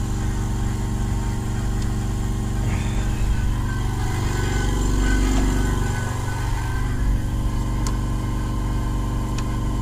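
Engine idling steadily, a low even hum, with a few faint clicks near the end.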